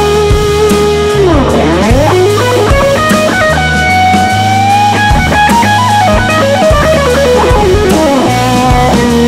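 Blues-rock band playing an instrumental passage: an electric guitar solo of long sustained, wavering notes over bass and drums. About a second in the guitar swoops down in pitch and back up, and in the second half it plays a descending run of notes before settling on a held note near the end.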